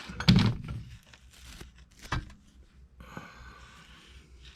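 Small parts being handled on a workbench: a dull thunk just after the start, a sharp click about two seconds in, then faint rustling.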